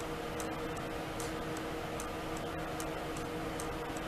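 Light, regular ticking, about two ticks a second, over a steady low hum.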